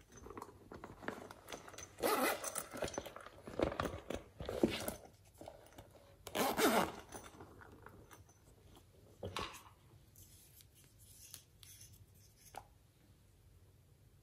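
A green silicone frog-shaped case handled in the hands: irregular bursts of rubbing and scraping against the silicone and plastic, with a few soft clicks in the second half.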